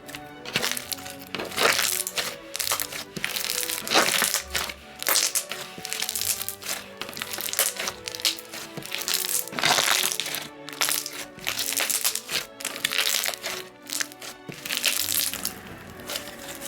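Thick clear fishbowl slime being squeezed and worked by hand, making many sharp pops, crackles and crunches, over background music.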